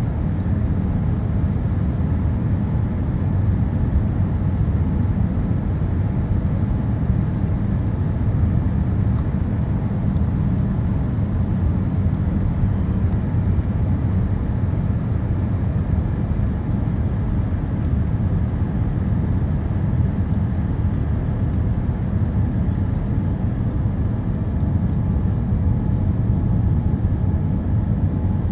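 Boeing 787 cabin noise in flight: a steady, unbroken low drone of engine and airflow.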